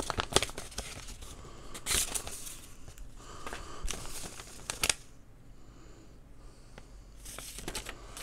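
Paper rustling and crinkling in short bursts as a gift note and its card are handled and unfolded, with a quieter stretch in the middle.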